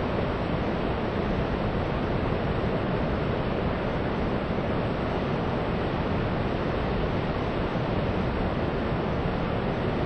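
Heavy, muddy torrent of a large river plunging over a 90-metre waterfall fed by a dam's outflow, making a loud, steady, unbroken rush of water.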